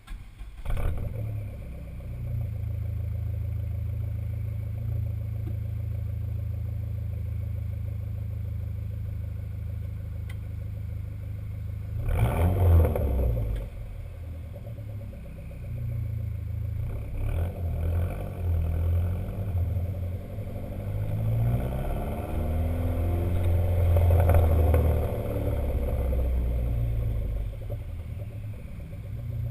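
Dodge SRT-4's turbocharged 2.4-litre four-cylinder on a Stage 1 tune with the stock exhaust: it starts with a brief flare about a second in and settles to a steady idle. About twelve seconds in it is revved once sharply, then from the middle onward it is revved up and down repeatedly, with crackling from the exhaust.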